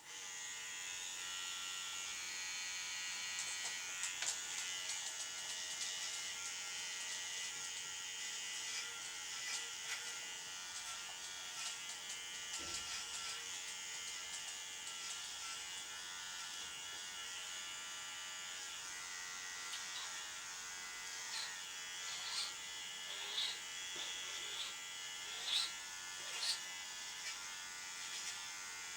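Electric dog-grooming clippers switched on and running with a steady buzz while a poodle puppy is trimmed. A few short, high sounds cut in over the buzz in the last third.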